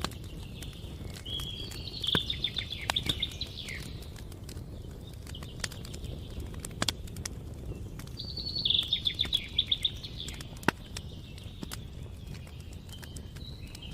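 Campfire crackling with scattered sharp pops over a low, steady rush. A songbird sings two rapid trilled phrases, one about two seconds in and one near the middle.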